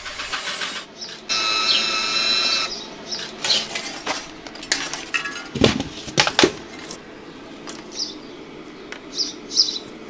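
Washing machine motor mounted on a bicycle runs briefly with a steady high-pitched whine for about a second and a half, then stops. This is followed by a series of metallic knocks and clatter as the bike and motor are handled. A few short bird chirps come near the end.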